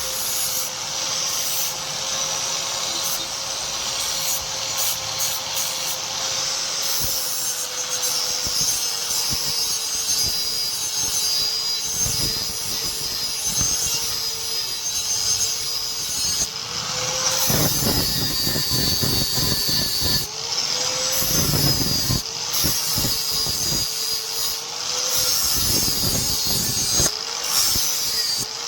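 Electric power tool running with a steady hum, which sags each time work is pressed against it, with bursts of rough grinding or sanding noise in the second half.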